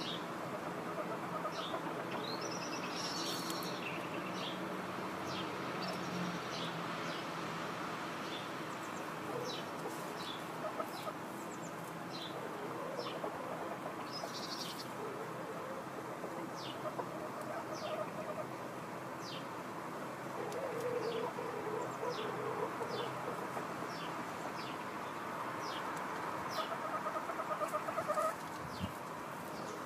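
Domestic hens clucking softly while they forage in straw, with many short high chirps throughout.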